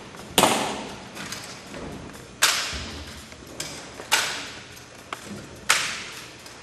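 Sharp slaps of hands striking a bayonet-tipped Springfield 1903-A3 rifle during exhibition rifle drill. Four loud cracks come about every one and a half to two seconds, with lighter taps between, each ringing out in a large, echoing gym.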